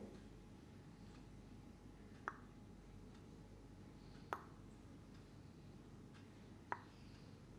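Near silence over faint low background noise, broken by three short, sharp clicks about two seconds apart.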